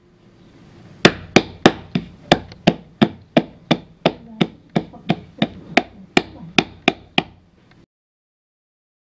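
Hands patting jowar (sorghum) roti dough flat on a board. Starting about a second in, the palms strike it in a steady rhythm of about three sharp slaps a second, and the slapping stops suddenly about seven seconds in.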